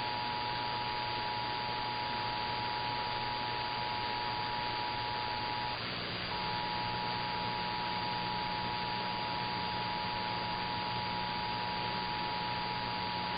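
The two-tone Emergency Alert System attention signal held steadily over a constant hiss of radio static, with a brief dropout about six seconds in.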